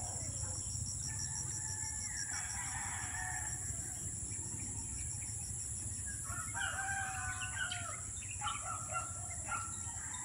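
Roosters crowing, several calls overlapping in the second half, over a steady high hiss.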